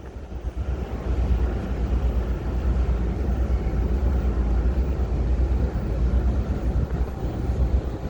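Wind buffeting the microphone: a loud, uneven low rumble with no ship's horn sounding.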